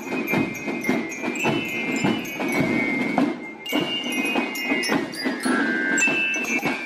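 Marching fife-and-drum band playing a march: a high fife melody held in steady notes over a run of drum strokes.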